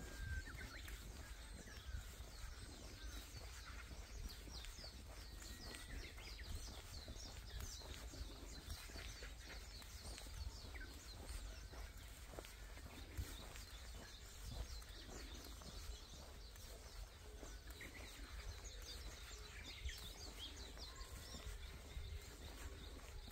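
Small birds chirping in many short calls, over footsteps and a steady low wind rumble.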